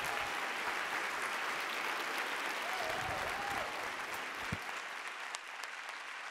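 Audience applauding after a speech, a dense steady clatter of many hands that eases off slightly near the end.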